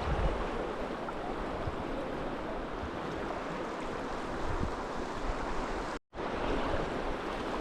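Steady rush of a fast-flowing river, an even wash of water noise, with a brief dropout about six seconds in.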